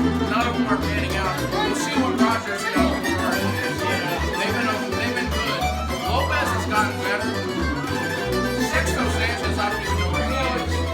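Croatian tamburitza ensemble playing an instrumental tune: a busy plucked-string melody over a plucked bass line that steps from note to note, with a little chatter beneath.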